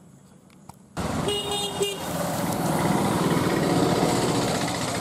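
Busy road traffic: vehicle engines running and a vehicle horn honking once, briefly, about a second in. Before that comes a quiet first second, then the traffic sound starts abruptly.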